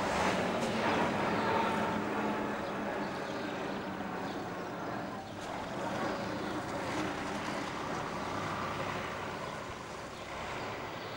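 Diesel engine of a Škoda ŠT 180 articulated tractor running steadily under way with a disc harrow in tow, growing fainter as it drives off.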